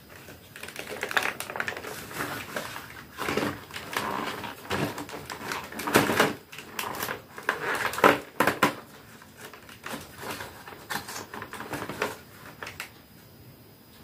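Small plastic toy pieces being handled and snapped together: a run of irregular clicks and rustling, with a few louder clacks about six and eight seconds in, going quieter near the end.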